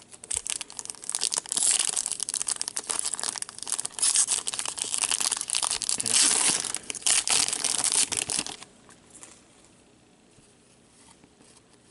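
Foil trading-card pack wrapper being torn open and crinkled by gloved hands, a dense crackling that stops about eight and a half seconds in.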